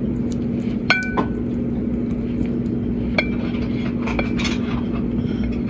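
A utensil clinking against a dish, a few separate clinks that each ring briefly, over a steady low hum.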